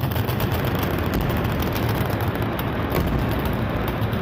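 Dense, continuous machine-gun fire, many shots a second running together into a steady clatter.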